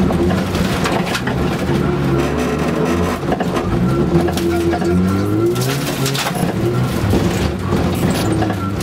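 Rally car's engine heard from inside the cabin, revving up and dropping back several times as it is driven hard on a gravel track. Scattered knocks and rattles come through as well.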